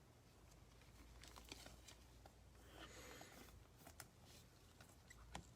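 Near silence: room tone with a low steady hum and a few faint scattered clicks and rustles.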